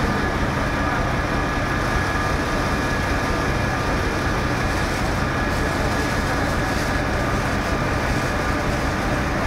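Fire engines running steadily: a constant low rumble with a steady high whine held at two pitches over it.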